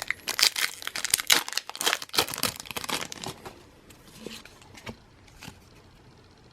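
Pokémon card blister pack being torn open by hand, its packaging crinkling and tearing: a dense run of crackling for about three seconds, then a few scattered crinkles that die away.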